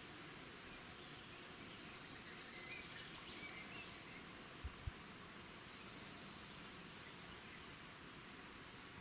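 Faint outdoor ambience: a steady low hiss with scattered short, high-pitched chirps, and two soft low thumps close together about halfway through.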